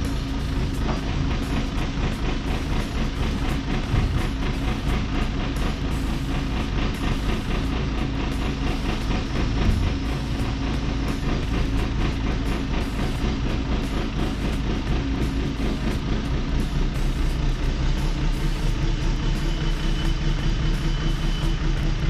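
Backhoe loader's diesel engine running steadily at a constant speed.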